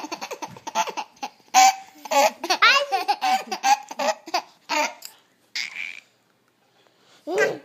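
Baby laughing in a run of short, rapid giggles that die away about five to six seconds in; after a short silence a new voiced sound begins near the end.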